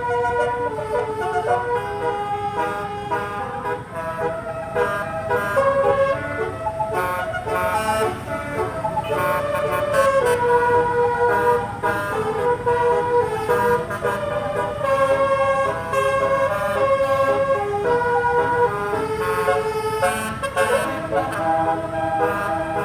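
Bus telolet horns: multi-tone horns playing a tune in quick stepped notes, one run after another, over a low rumble of engines.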